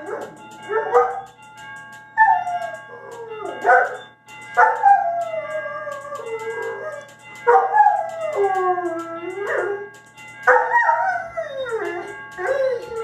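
A dog howling at the doorbell: a run of about six drawn-out howls, each sliding down in pitch, with short yelps between them. Faint steady tones sound underneath.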